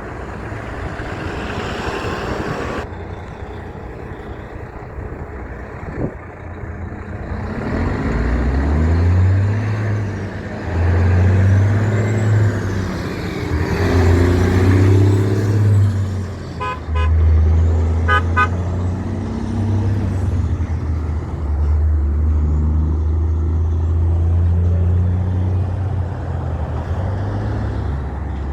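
Heavy truck's diesel engine pulling hard, its deep pitch climbing and dropping in steps as it works through the gears, with two quick horn toots a little past halfway.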